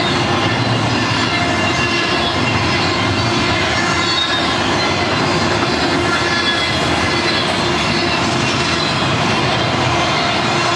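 Double-stack intermodal freight cars rolling steadily past: a continuous rumble and rattle of steel wheels on rail, with faint high-pitched wheel squeal running through it.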